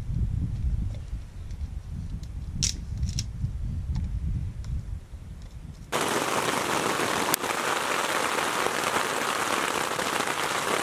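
A low rumble with a few sharp snaps. About six seconds in it switches suddenly to heavy rain drumming steadily on a tent.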